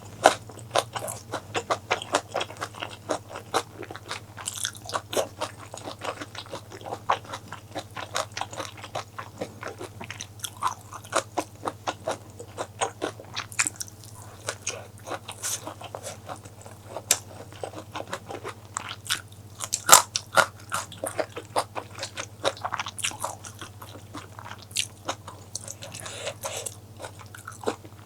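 Close-miked eating sounds: a person biting and chewing crunchy food, with a dense, irregular run of sharp crunches, clicks and mouth smacks. The loudest crunch comes about twenty seconds in.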